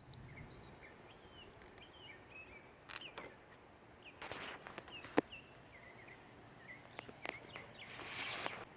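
Birds chirping faintly and often, with a few sharp clicks and knocks from something being handled close by, and a brief rustle near the end.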